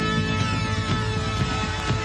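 Background music with a steady beat and held tones, with several falling sweeps through the middle.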